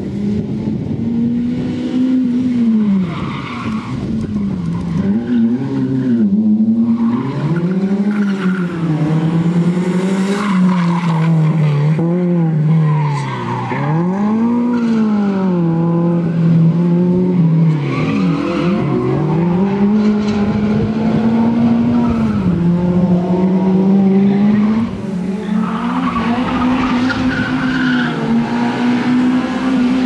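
Suzuki Swift hatchback's engine revving hard through the gears and falling away again and again as it is thrown through a tight slalom course, with tyres squealing at times.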